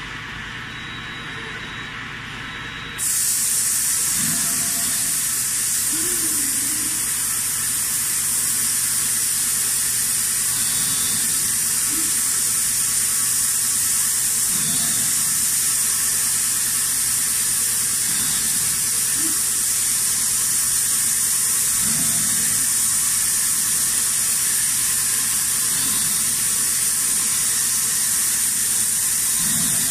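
Robotic bending cell on an all-electric servo press brake at work: a steady loud hiss switches on about three seconds in, and short rising-and-falling whirs of the servo motors recur every three or four seconds as the robot and ram move through the bends of a thin stainless sheet.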